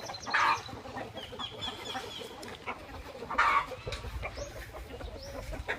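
Game chickens clucking, with two louder short calls about half a second and three and a half seconds in, and faint high chirps between them.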